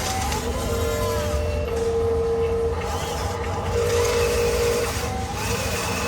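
Whine of small electric motors and gearboxes of RC construction trucks, starting and stopping several times with the pitch rising and falling as they are driven.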